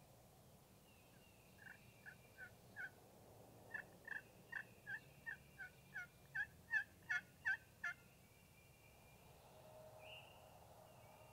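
Wild turkey yelping: a series of about sixteen short yelps, evenly spaced and getting louder toward the end.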